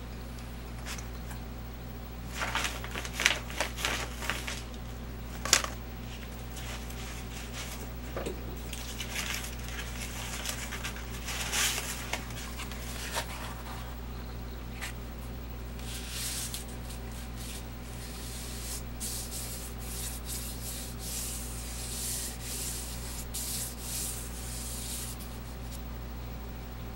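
Crumpled brown paper crinkling as it is handled and laid onto a gelatin printing plate, then hands rubbing it down over the plate for several seconds with a dry, brushing rustle. A low steady hum runs underneath.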